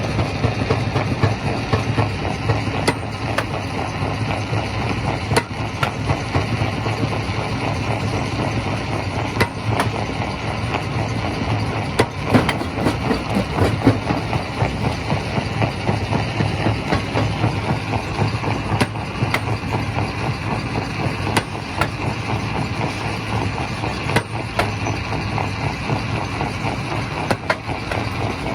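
Primary rock crushing machine running: a steady low mechanical hum with irregular sharp knocks throughout.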